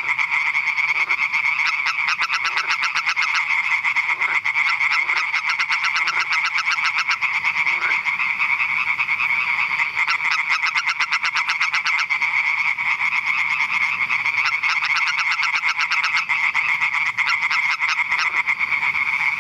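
Male European tree frog (Hyla arborea) giving its advertisement call: a fast, unbroken run of pulsed notes.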